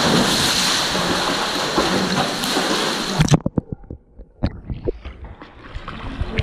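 A Labrador jumping into a pool, with loud splashing and churning water. About three seconds in the sound turns suddenly muffled, as heard from under the water, with a few dull knocks. The splashing of the dog paddling comes back faintly near the end.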